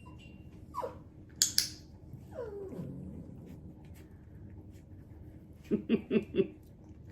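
Havanese dog whining in falling whines, with a sharp high noise about a second and a half in, then four quick yips near the end.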